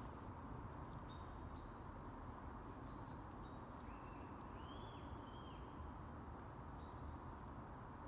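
Quiet outdoor ambience: a steady low hiss and rumble, with a few faint, high bird calls, two of them about four to five seconds in.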